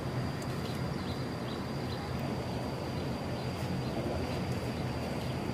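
Outdoor ambience: a steady low rumble under a thin, steady high-pitched whine, with a few short, faint chirps about a second in.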